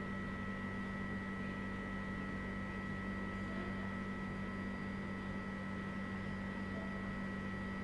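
A steady electrical hum with hiss and a faint high whine, unchanging, with nothing else happening.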